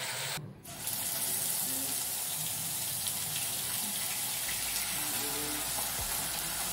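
Onion frying in hot oil in a kadai: a steady sizzling hiss that starts about a second in after a brief dip.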